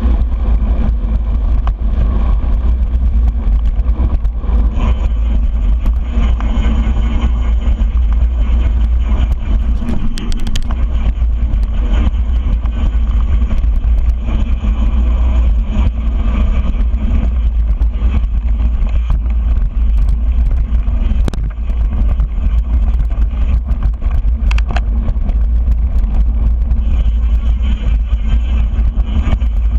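Wind buffeting the microphone of a handlebar-mounted action camera on a moving mountain bike, a steady heavy rumble, mixed with the knobby tyres rolling over a dirt trail. Occasional clicks and rattles from the bike jolting over bumps.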